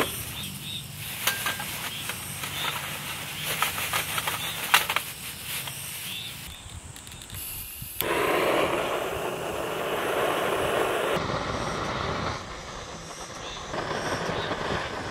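A plastic bag rustles and charcoal briquettes clatter into a small stainless steel grill. About eight seconds in, a butane gas torch lights with a sudden, steady hiss as its flame is held to the charcoal to start it.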